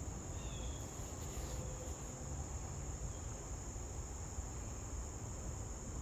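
Steady insect chorus: a continuous high-pitched trill of crickets, with a low rumble underneath.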